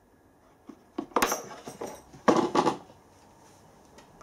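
Steel taps, dies and die holders clinking and rattling in a wooden tool-chest drawer as it is handled and slid shut. There are sharp clatters about a second in and a louder cluster a little past two seconds.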